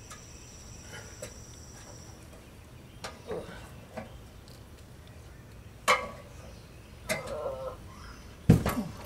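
Scattered metallic knocks and clanks of an extension ladder and a golf cart battery as the battery is carried up the ladder onto a boat's deck, a few seconds apart, with the loudest, heaviest knock near the end.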